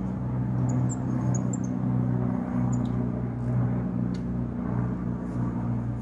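Spinning reel being cranked to bring in a hooked trout: a steady low whir that pauses briefly a few times, with a few faint high squeaks in the first two seconds.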